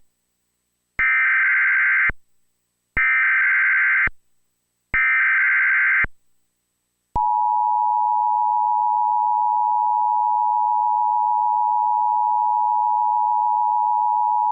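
Emergency Alert System SAME data header: three identical bursts of rapid digital warble, each about a second long, with a second of silence between them. About seven seconds in, the steady two-tone EAS attention signal begins, announcing the tornado warning that is about to be read.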